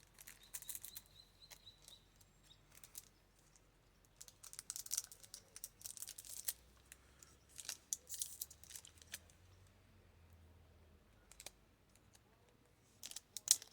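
Trading-card pack wrapper being torn open and crinkled, in short scattered bursts of faint rustling.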